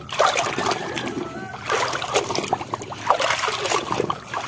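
Muddy water sloshing and splashing in a basin as a hand scrubs a toy vehicle under the surface, in a run of irregular swishes.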